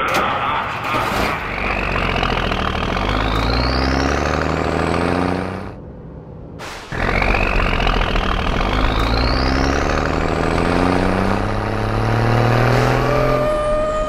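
Truck engine sound effect revving up twice, its pitch climbing steadily each time, with a short break about six seconds in. A steady high tone starts near the end.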